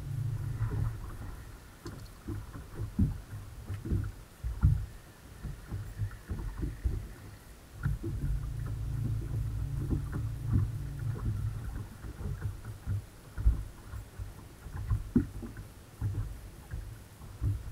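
Bass boat's bow-mounted electric trolling motor humming in spells: it runs for the first second or so, stops, and comes back on for a few seconds in the middle. Irregular low thumps and bumps run throughout.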